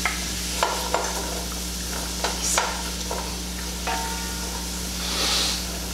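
Diced carrots, onions and garlic sizzling in butter and oil in a stainless steel stockpot, stirred with a wooden spoon that knocks lightly against the pot a few times.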